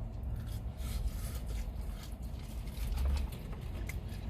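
Chewing and crunching of crispy fried chicken: scattered small crackles and rustles over a steady low rumble inside a car.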